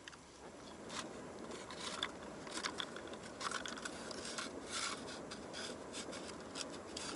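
Irregular scraping and rustling with many sharp clicks: hands working fishing gear at an ice hole while a tip-up (zherlitsa) is reset.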